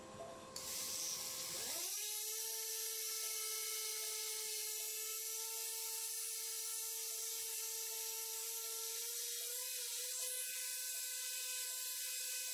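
Handheld surgical power saw running with a steady whine as it cuts through a dog's pubic symphysis, starting about two seconds in; its pitch lifts slightly about three quarters of the way through.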